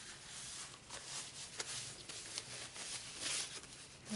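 Paper tissue rustling and rubbing as it wipes water off a small plastic doll, faint, with a few short crinkles.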